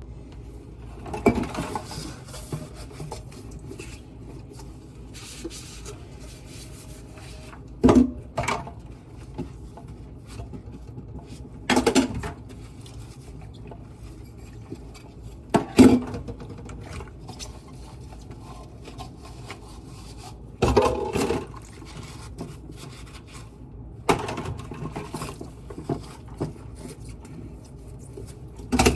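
Kitchen dishes and utensils being handled, with a steady low clatter and several sharp clinks and knocks a few seconds apart.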